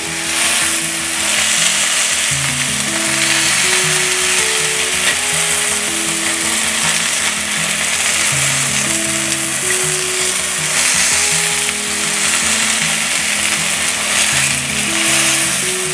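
Marinated chicken breasts sizzling steadily in oil on a hot ridged grill pan, a continuous frying hiss. Background music with short melodic notes plays along with it.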